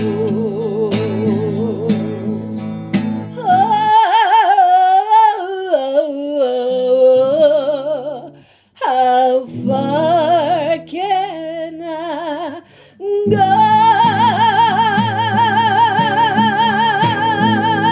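A woman singing long held notes with wide vibrato to strummed acoustic guitar. The guitar thins out in the middle and the sound briefly drops away about eight and a half seconds in. The guitar then returns under one long sustained note that ends the song.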